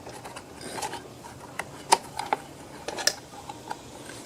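Irregular sharp metallic clicks and clanks from hand work on a Kohler lawn mower engine, about seven in all, the loudest about two seconds in.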